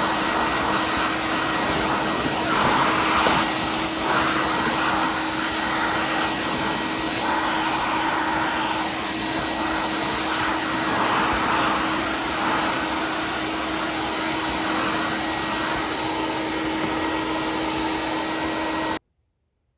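Sirena water-filter vacuum cleaner running, a steady motor hum and whine under a rush of suction air that swells and eases from moment to moment. It cuts off abruptly near the end.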